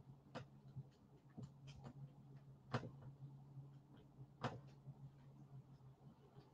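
Near silence: room tone with a low steady hum and a few faint, scattered clicks.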